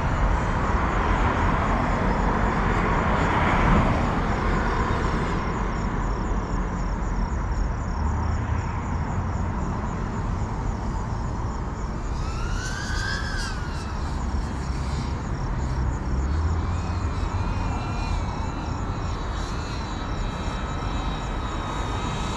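GEPRC CineLog35 FPV drone's motors and propellers whining at a distance. The pitch rises and falls as the throttle changes, with a strong swell about twelve seconds in, over a steady low rumble.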